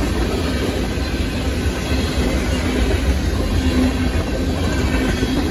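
Freight cars (covered hoppers and boxcars) rolling past on the rails: a steady rumble and clatter of steel wheels on track.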